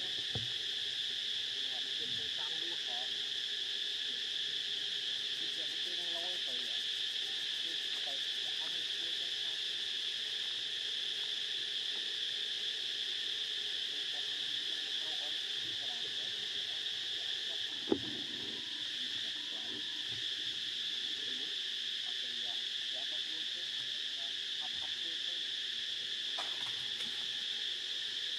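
A steady, high-pitched drone of insects that holds unbroken throughout. A single sharp click comes about two-thirds of the way through.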